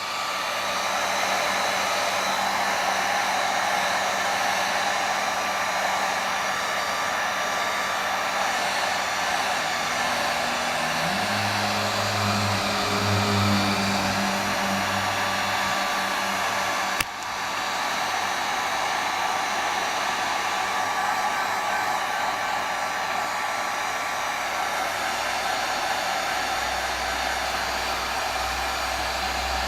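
Heat gun blowing steadily as it is passed over the tablet to soften the glue under the digitizer. A single sharp click about halfway through.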